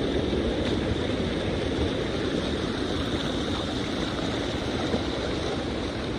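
Floodwater rushing steadily down a flooded wash, a continuous even rushing noise.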